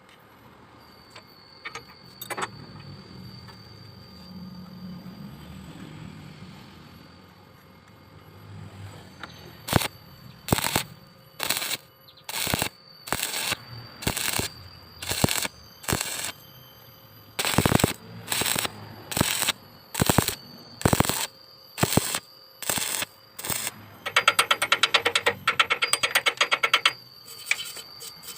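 Arc welding on thick iron in short stitches: after about ten seconds of low hum, a long series of brief crackling arc bursts, roughly one a second, each under a second long. Near the end comes a few seconds of rapid, fine crackle, with a faint steady high whine throughout.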